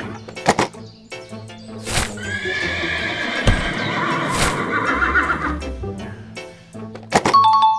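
A horse whinny sound effect over background music: one long wavering call that trembles toward its end, with a few sharp clicks around it and two short steady tones near the end.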